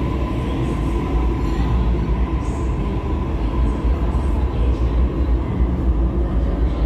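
Double-deck electric suburban train pulling out of an underground station and running off into the tunnel: a steady low rumble of wheels and motors, echoing off the platform walls, with a thin whine in the first couple of seconds.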